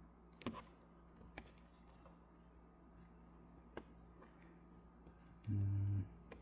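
A few faint computer-mouse clicks over a low steady electrical hum, then a short, steady-pitched hum of a man's voice ("mm") near the end.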